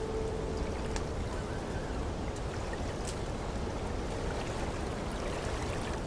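Steady water ambience: a continuous wash of water with a few scattered louder drips. A held music note fades out in the first half second.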